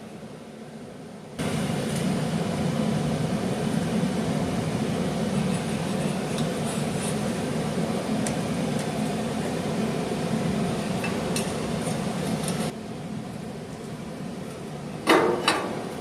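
A handheld power tool runs steadily for about eleven seconds, starting and stopping abruptly, while touching up a freshly cut access hole. Two sharp knocks follow near the end.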